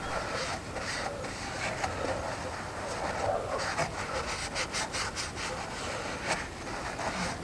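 Blue paper towel rubbed around an engine's oil filler neck by nitrile-gloved hands: irregular wiping and scraping strokes, a few sharper ones about halfway through.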